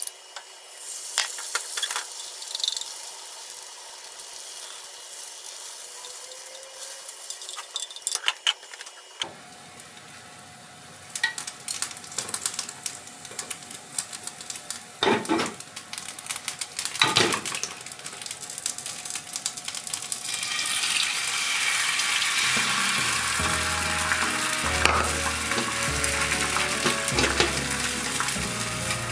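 Egg and mitsuba leaves sizzling in a hot rectangular tamagoyaki pan, with wooden chopsticks scraping and tapping against the pan. The sizzle swells about two-thirds of the way through as the last of the beaten egg goes in, and background music with a bass line comes in near the end.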